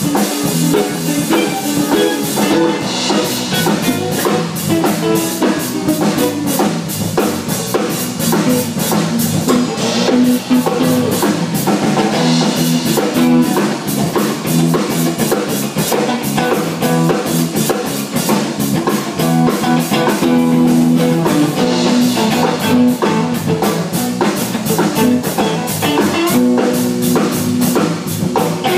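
A band playing an instrumental jam: a drum kit keeping a steady, busy beat under guitar.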